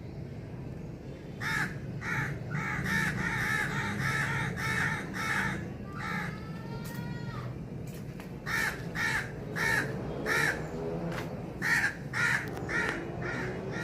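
Crows cawing in runs of short, repeated caws, about two a second, with one longer, drawn-out call in the middle, over a steady low background noise.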